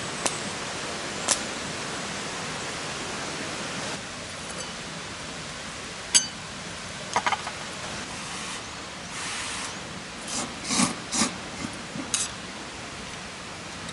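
Wood campfire burning with a steady hiss and scattered sharp pops and cracks, a little cluster of them near the end.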